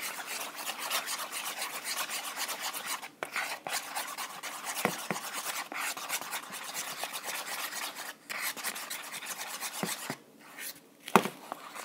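A spoon stirring thick glue slime mixture in a paper bowl, scraping round the bowl in quick continuous strokes with a few short pauses. A single sharp tap near the end.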